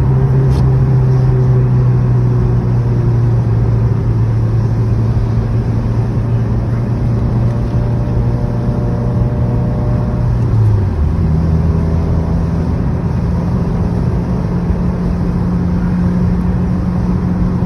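2016 Subaru WRX's turbocharged flat-four engine running steadily at cruise, under road noise. About eleven seconds in, its note briefly dips and then settles at a new, higher pitch.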